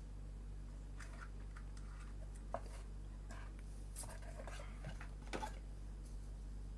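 Packaging being handled as a webcam is taken out of its box: scattered light clicks and rustles, over a steady low hum.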